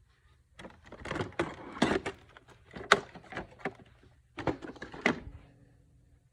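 A quick run of clicks, knocks and clatter, as of parts being handled and snapped into place, lasting about five seconds, then a short faint hum.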